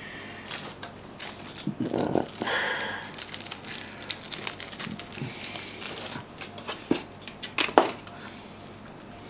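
Small plastic parts of a computer mouse being handled on a workbench: scattered light clicks and taps with some rustling.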